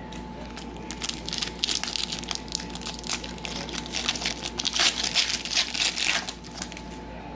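Foil trading-card pack wrapper crinkling as it is handled and opened, a dense run of crackles that is loudest near the end.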